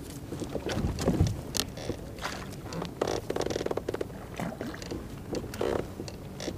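Fishing reel being cranked to bring in a hooked trout, in short spells of rapid clicking over a low rumble.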